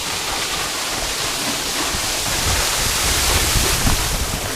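Waterfall rushing close by, a steady wash of falling water with a low rumble that swells past the middle.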